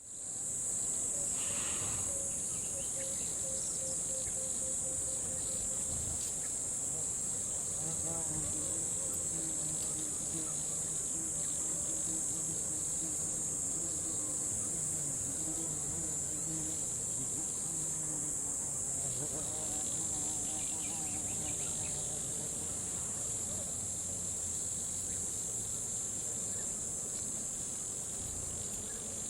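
Dense chorus of jungle insects: one steady, high-pitched drone that never lets up. Fainter, lower-pitched wavering calls come and go through the middle.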